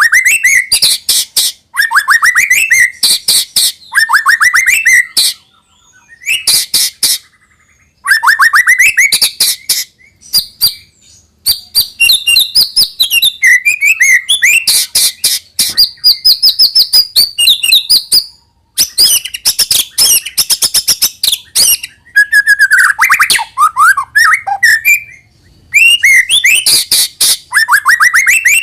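White-rumped shama (murai batu) singing a loud, fast, varied song: rapid runs of sharp repeated notes, rising whistled sweeps and high chattering trills, broken by a few short pauses.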